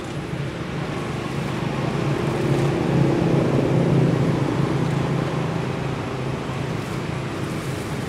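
Steady low engine hum over a wash of traffic noise, swelling to its loudest about three to four seconds in and then easing off, like a motor vehicle passing.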